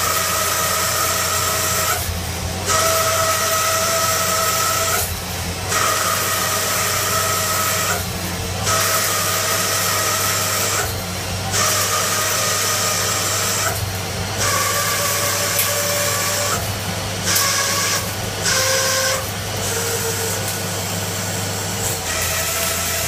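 CNC lathe turning a metal bar in repeated passes: a steady hiss and whine from the cut over the spindle's low hum. The cutting noise breaks off briefly about every three seconds, and its whine shifts in pitch from pass to pass.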